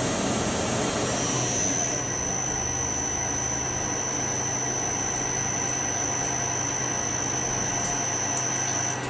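Tormach CNC lathe running, its spindle turning the chuck with coolant spraying, while the tool feeds in slowly at reduced feed for a test facing cut. A steady low hum runs under a thin high-pitched whine that comes in about a second in and cuts off near the end.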